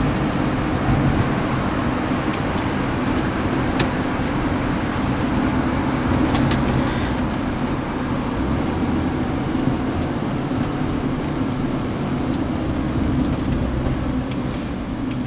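Motorhome driving at motorway speed, heard inside the cab: a steady drone of engine and tyre noise.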